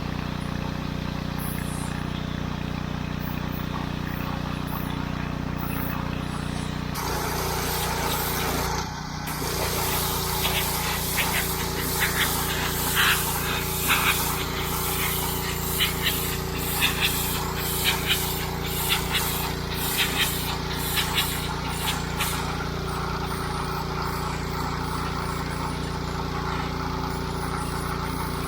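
Pressure washer's engine running steadily. About seven seconds in, the high-pressure water jet hisses on, with short louder spurts for the next fifteen seconds or so as the jet is swept over a mildewed marble headstone to clean it.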